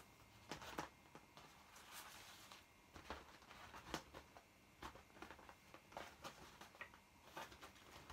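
Faint, irregular squeaks and rubbing of an inflated vinyl dog toy as it is squeezed and turned in the hands, with a brief higher squeak near the end.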